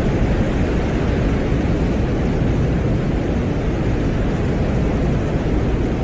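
Audio presented as the Venera 14 lander's microphone recording from the surface of Venus: a steady, dull, deep noise with a hiss above it, unchanging throughout and not clear. The video puts it down first and foremost to wind at the landing site.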